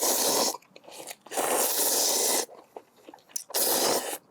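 Three loud slurps of cold buckwheat noodles (makguksu): a short one at the start, a longer one of about a second, and another short one near the end.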